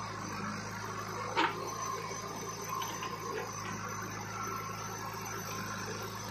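Backhoe loader's diesel engine running at a steady pitch while the backhoe arm works, with one short sharp sound about a second and a half in.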